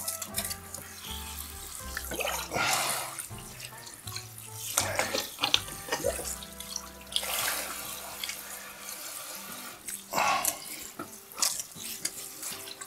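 Kitchen faucet running water over a raw turkey in the sink, splashing in uneven surges as the bird is turned under the stream.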